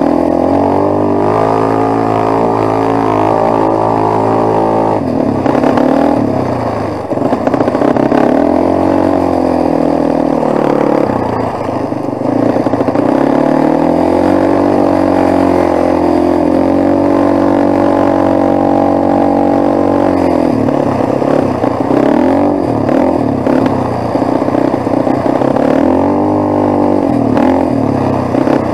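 Quad (ATV) engine running under way on a rough sandy track. The engine note holds steady, drops and picks up again several times as the throttle is eased and opened.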